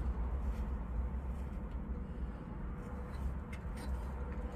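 A vehicle engine idling: a steady low rumble, with a few faint clicks over it.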